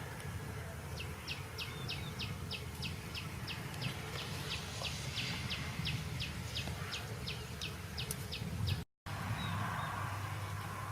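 A small animal's call: a run of short, high chirps, about four a second, lasting some seven seconds, over a steady low rumble of background noise.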